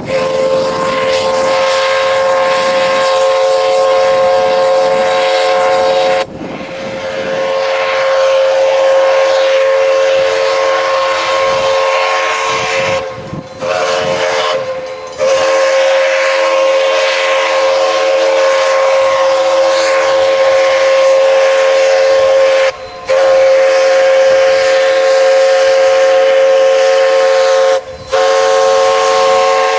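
Essex Terminal No. 9, a 0-6-0 steam locomotive, blowing its chime whistle in long, loud blasts. Several notes sound together as a chord, broken only by a few short gaps.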